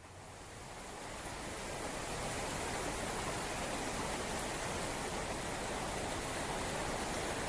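Steady hiss of heavy rain, fading in over the first second or so, then holding evenly.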